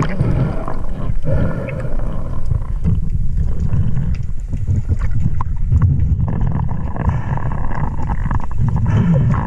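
Water rushing and sloshing around a spearfisher's camera, with a continuous low rumble and scattered clicks. Heavy breathing through a snorkel comes in rough waves and swells again near the end.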